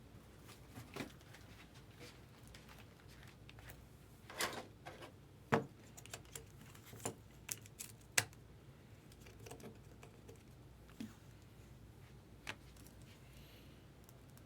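Trading card box and packs being handled and opened: scattered sharp clicks and taps, with a brief rustle of wrapper about four seconds in.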